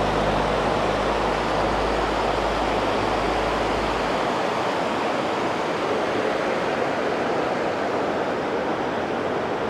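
Shallow whitewater of the Las Vegas Wash rushing steadily over rocks at a weir. Faint low background music underneath stops about four seconds in.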